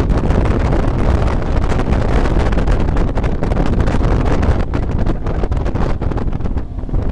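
Steady wind rush buffeting the microphone on a fast-moving ski boat, mixed with the boat's engine and the churning of its wake.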